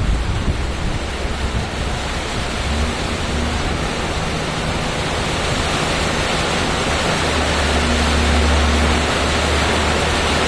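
Steady rain falling, an even hiss, with a low rumble underneath that grows stronger about two-thirds of the way in.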